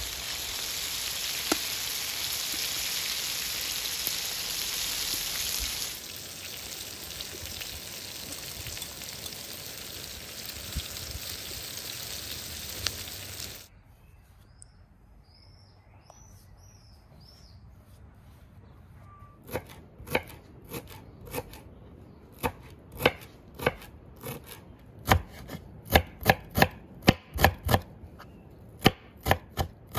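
Meat and vegetables sizzling in a hot iron saj pan. After about 14 seconds the sizzling stops and a few birds chirp. Then a knife starts chopping dill and green onions on a wooden cutting board, sharp knocks that come sparsely at first, then faster, and are the loudest sound.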